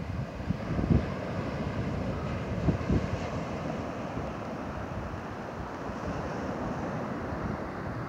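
Atlantic surf washing onto the beach as a steady roar of breaking waves, mixed with wind buffeting the microphone in low gusts, the strongest about a second in and again near three seconds.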